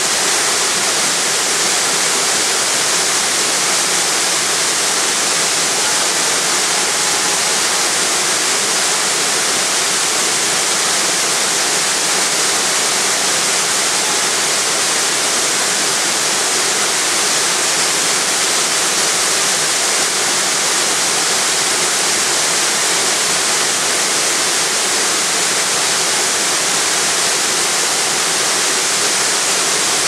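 Waterfall plunging into a rock pool: a steady, loud rush of falling water with a bright hiss, unchanging throughout.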